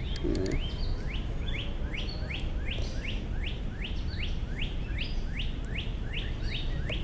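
A songbird calling the same quick, falling note over and over, evenly, nearly three times a second, over the steady rush of the creek.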